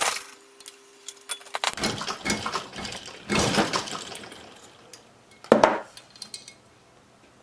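Sterling silver chain links jingling and clinking against each other and a metal tool as the bracelet is handled, with a loud sharp clink about five and a half seconds in; the jingling dies away near the end.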